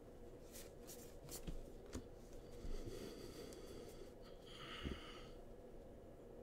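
Faint handling of baseball trading cards: soft flicks and rustling as the cards slide against one another while a pack is flipped through, with a few light flicks in the first two seconds.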